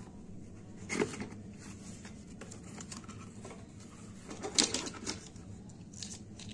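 Handling of cardboard boxes of 12-bore shotgun cartridges: a knock about a second in, then a cluster of clicks and rattles about four and a half seconds in as plastic shotgun shells are picked out and knock together. A steady low hum runs underneath.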